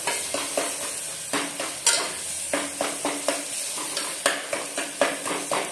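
Metal spatula scraping and knocking against the inside of a pressure cooker in repeated strokes while stirring masala, which sizzles steadily as it fries.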